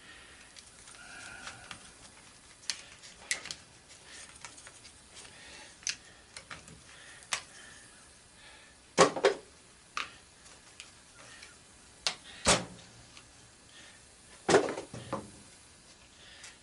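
Scattered clicks and knocks of small plastic and metal parts being handled as an angle grinder's rear housing is taken apart, with three louder knocks in the second half.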